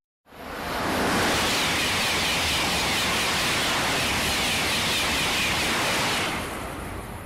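A TGV high-speed train passing close by at speed: a loud, steady rushing of air and wheels on the rails. It sets in quickly at the start and fades from about six seconds in as the train goes by.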